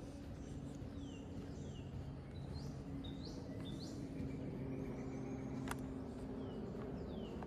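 Songbirds chirping, a run of short quick notes that sweep up and down, over a steady low hum. A single sharp click about three-quarters of the way through.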